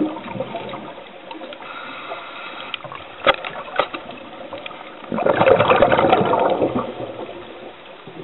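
Underwater water noise: a steady watery hiss with a few sharp clicks, then a loud rush of bubbles lasting about two seconds halfway through, typical of a scuba diver breathing out through the regulator.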